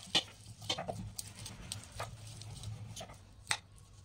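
Stainless steel potato masher pressing boiled potatoes in a metal bowl, giving irregular metallic taps and clicks as it knocks against the bowl, the sharpest about three and a half seconds in.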